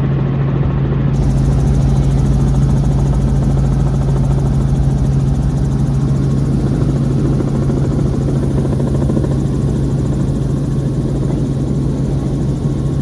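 Robinson R44 helicopter running, its engine and rotor making a steady low hum over a constant wash of noise.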